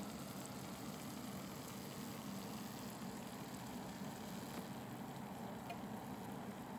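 Samosas shallow-frying in oil in a nonstick pan: a steady soft sizzle with a few faint small pops, over a low steady hum.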